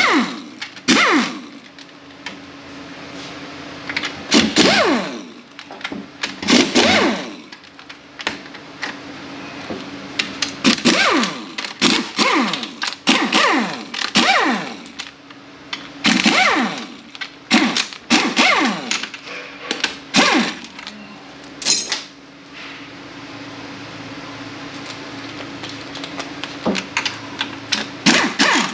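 A power ratchet run in short bursts again and again, backing bolts out of an automatic transmission case, its pitch falling in each burst.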